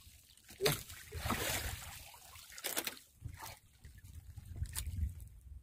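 Water trickling and splashing in a small wooden outrigger boat, with a few sharp knocks as a freshly caught fish is handled. A splashy hiss runs for about a second near the start, over a low steady rumble of sea and wind.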